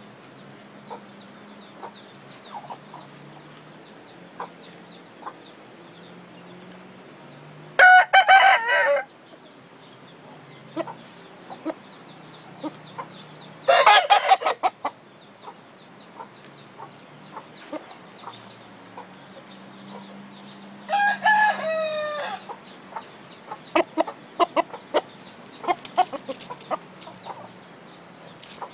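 Rooster crowing three times, each crow about a second long and some six seconds apart, with light clucking and small ticks between the crows.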